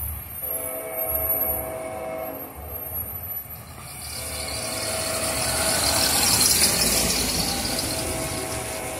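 Diesel locomotive air horn sounding long blasts in the distance, three in a row, the last one still going at the end. Between the second and third, a car passes close on wet pavement with a rising and falling hiss of tyre spray, the loudest sound here.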